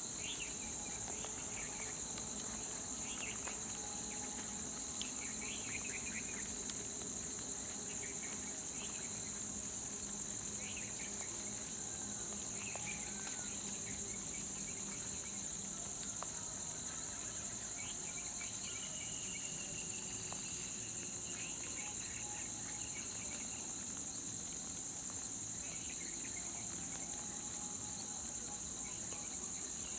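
Steady, high-pitched insect chorus droning without a break, with scattered short chirps over it.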